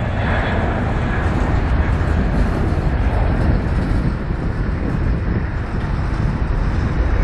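Jet rumble from a Boeing 767-300's two turbofan engines at takeoff thrust as the airliner climbs away, a steady deep roar with no single events.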